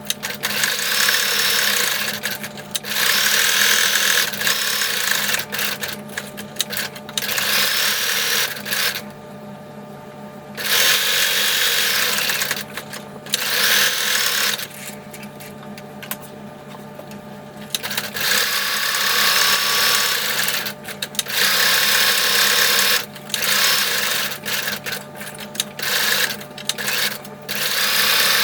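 Sewing machine stitching in several runs of a few seconds each, stopping and starting between them, as straight lines of topstitching are sewn.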